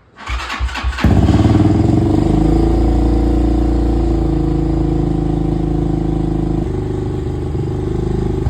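Tao Tao TBR7 250 dirt bike's single-cylinder four-stroke engine cranking briefly, catching about a second in and idling steadily on fresh oil after an oil change, its note shifting slightly near the end.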